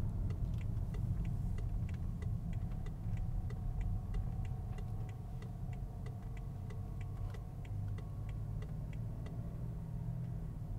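Turn-signal indicator ticking evenly, about three clicks a second, over the steady low rumble of the BMW X5 M's engine and road noise heard inside the cabin.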